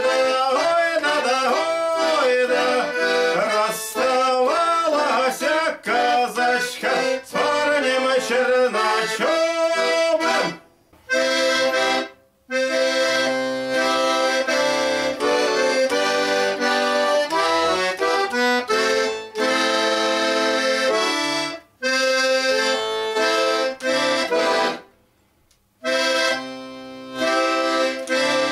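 Russian garmon (button accordion) playing a folk tune, melody over chords. The playing breaks off for short pauses about four times, the longest lasting about a second.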